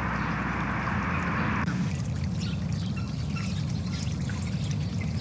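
Wetland ambience of water noise with faint scattered bird calls. About a second and a half in, the sound cuts abruptly from a steady hiss to a low rumble with short chirps.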